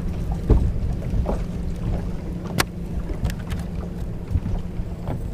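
Wind on the microphone and water against the hull of a bass boat, with a steady low hum and a few sharp knocks and clicks on the deck: a thump about half a second in and a sharp click about two and a half seconds in.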